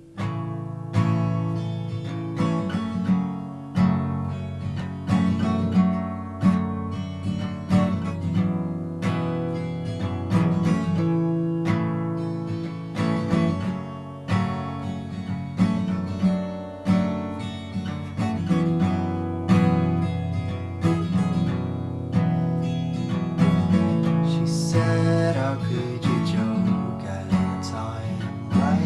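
Acoustic guitar strummed in a steady rhythm, playing chords as the instrumental opening of a song.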